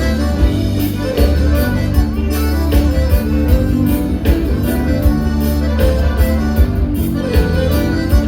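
Live gaúcho dance-band music with accordion, played at full volume over a steady percussive beat.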